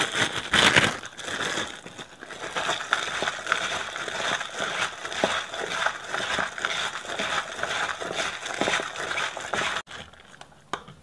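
Crinkling of a plastic bag worn as a glove and crunching of diced daikon radish and coarse salt as they are tossed and kneaded together in a bowl. This is salting the radish to draw its water out. The crinkling stops suddenly near the end.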